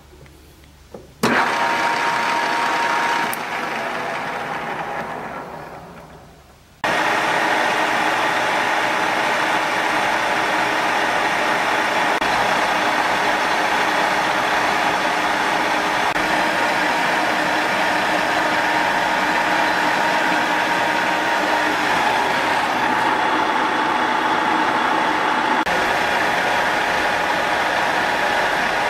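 BMT 1440 ZH centre lathe's spindle drive and headstock gearing. It starts sharply about a second in, runs briefly, then slows and fades away. A little under seven seconds in it starts again abruptly and runs steadily with a constant hum and tone.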